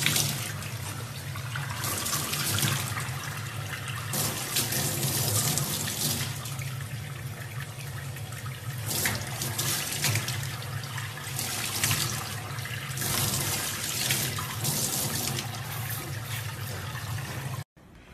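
Tap water running into a stainless steel sink and splashing over a baby chimpanzee sitting under the stream, with uneven surges of splashing. It stops abruptly near the end.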